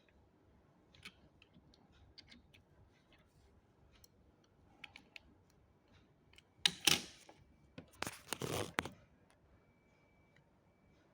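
Hands handling a Hot Wheels toy set and its packaging: scattered light clicks and taps, then a loud rustle about seven seconds in and a short cluster of louder rustling scrapes about a second later.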